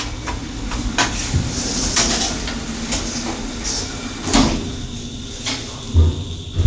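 OTIS Gen2 traction lift doors sliding shut after a button press, with several clicks and knocks as the door mechanism runs and the doors meet. Near the end a low hum comes in as the lift car starts to move.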